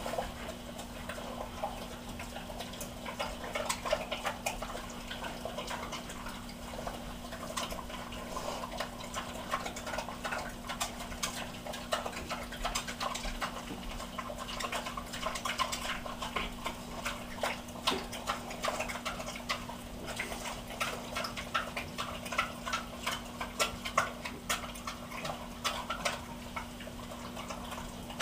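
Two pot-bellied pigs eating breaded popcorn shrimp from metal bowls: a rapid, irregular stream of crunching, chewing and mouth smacks. A steady low hum runs underneath.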